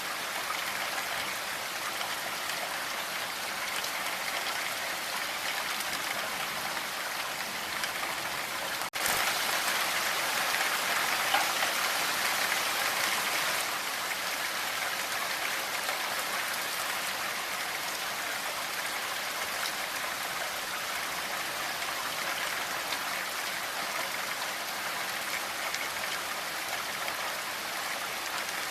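Steady rain falling, an even hiss of drops. About a third of the way in it cuts out for an instant, then comes back a little louder for a few seconds before settling again.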